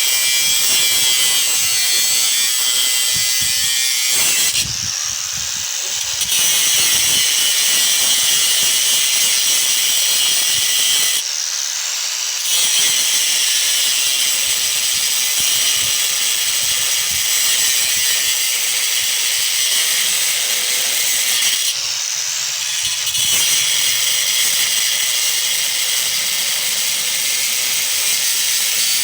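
Power tool with an abrasive cutting wheel cutting through an electric motor's metal. It runs as a steady high-pitched grind and eases off briefly three times.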